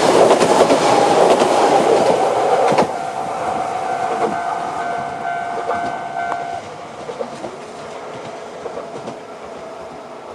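Two-car diesel railcar set (AN-2000 and AN-8800) passing over a level crossing with wheel clatter; the loud passing noise drops off sharply about three seconds in as the last car goes by. The crossing's electronic warning bell keeps ringing, with a high-pitched upper tone, until about six and a half seconds in and then stops, leaving the train fading into the distance.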